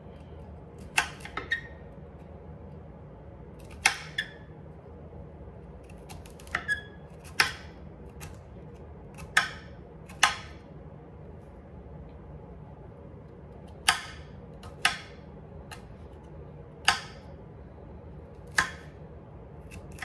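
Chef's knife chopping broccoli and cauliflower on a hard cutting board: about a dozen sharp knocks at irregular intervals, some in quick pairs, over a steady low hum.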